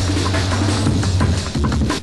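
Drum and bass music: busy breakbeat drums over a heavy, steady bass line.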